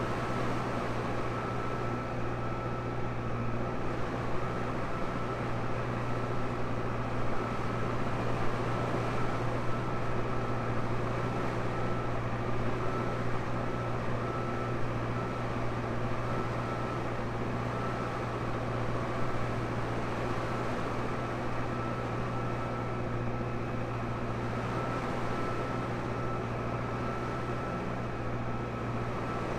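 Tractor engine running steadily at constant revs, a low even drone with a thin high whine held over it.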